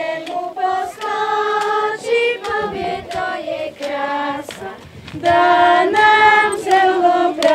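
A group of children and women singing a Slovak folk song together, unaccompanied, in long held notes; the singing grows louder about five seconds in.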